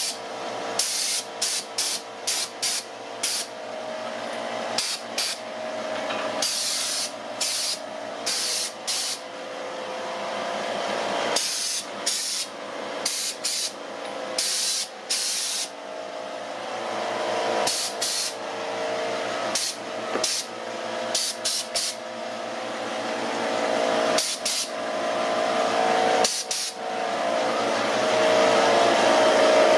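Electric air compressor running steadily, its pump note growing louder toward the end, with many short bursts of hiss scattered through it.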